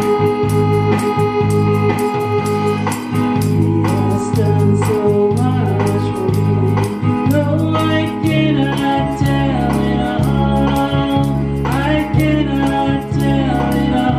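A woman singing a gospel song over held electronic organ chords, her voice strongest from about halfway through.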